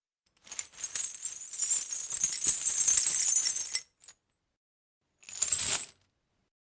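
Metal chain rattling and clinking: a continuous jangle of about three seconds, then a single short shake of under a second after a pause.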